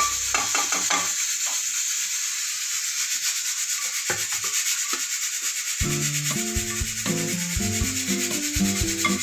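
A spatula scraping and rubbing against the inside of a non-stick kadhai, raking roasted grated dry coconut out onto a steel plate. It is a steady scratchy rubbing with a few sharper strokes. A simple background melody comes in about six seconds in.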